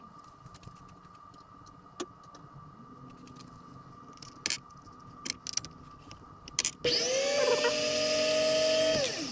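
Scattered light clicks and taps of small tools being handled, then a small electric motor spins up quickly near the end, runs at a steady pitch for about two seconds and stops.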